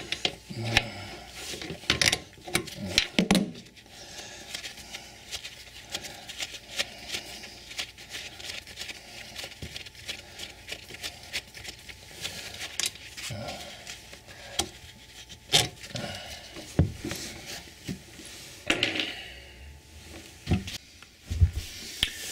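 A nut being worked off a toilet's closet bolt at the floor: a long run of quick small metallic clicks and scrapes, with a few louder knocks.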